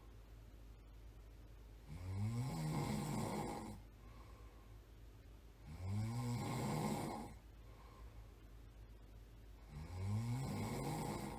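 A person snoring in a steady rhythm: three loud snores about four seconds apart, each rising in pitch as it starts, with quieter stretches between.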